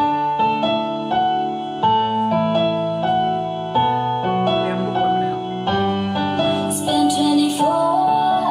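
Music played back through a line-array loudspeaker system under test: keyboard chords in a steady succession, with cymbal hits and a melody line coming in about seven seconds in.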